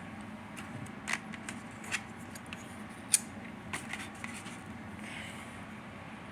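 Small plastic model-kit parts being handled: a few light, sharp clicks and taps spread over several seconds as pieces are picked up and set down, over a steady low hum.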